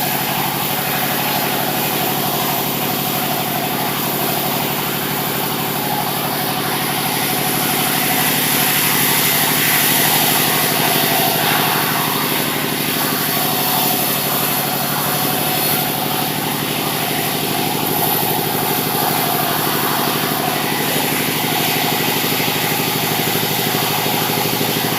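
Sawmill engine running steadily, growing slightly louder for a few seconds in the middle before settling back.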